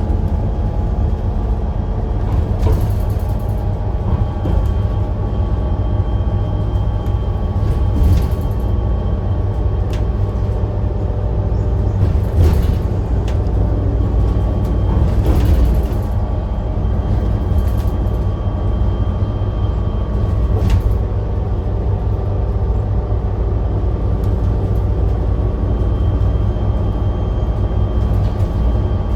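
Volvo B7RLE bus with a ZF Ecolife automatic gearbox running: a steady low diesel drone with several steady tones above it, and occasional short clicks.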